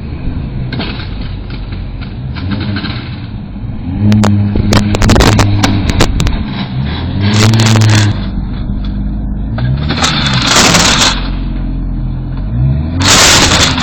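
A car engine revving up and dropping back over and over, as a driver tries to force the car away with a parking boot clamped on a wheel. Each of about four hard revs brings a burst of harsh scraping and grinding.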